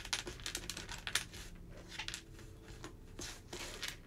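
Small wooden jigsaw puzzle pieces clicking against each other and the tabletop as they are picked through and sorted by hand: a run of light, irregular taps.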